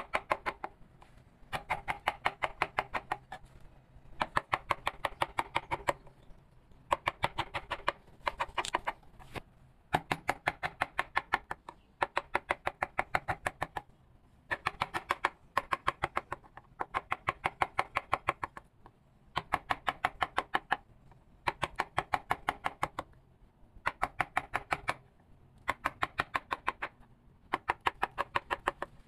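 Rapid light taps of a mallet driving a carving chisel into wood, about ten taps a second in runs of one to two seconds with short pauses between.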